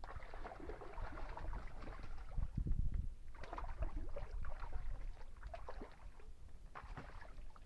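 Hooked bass thrashing and splashing at the water's surface beside a kayak, in three bouts, with a low thump near the middle.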